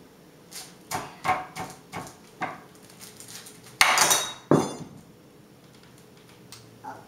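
Wooden muddler knocking and pressing on Play-Doh over wax paper on a glass-topped table: a run of light knocks, then two louder, sharper strikes about four seconds in.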